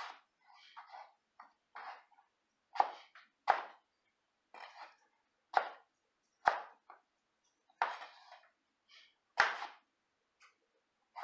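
Chef's knife slicing through russet potatoes and striking a plastic cutting board: separate chops at an unhurried, uneven pace, roughly one a second, some much louder than others.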